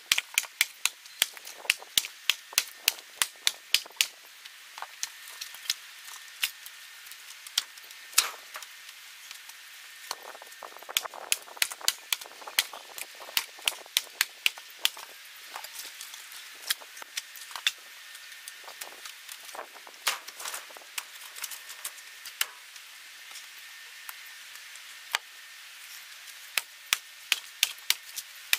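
Splitting axe striking birch rounds, a quick series of sharp cracks and knocks as the wood splits, coming in runs broken by short pauses.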